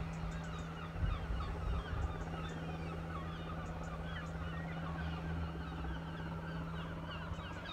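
A flock of birds calling all at once, a continuous chatter of many short overlapping calls, over a steady low hum and a low rumble.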